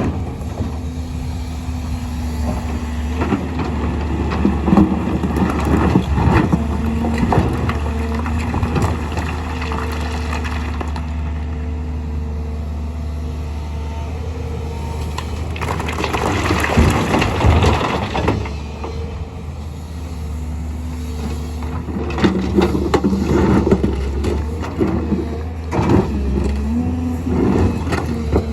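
Excavator's diesel engine running steadily under load, with bouts of stone clattering and scraping as rock is scooped and dumped into a truck. The loudest clatter comes a little past halfway.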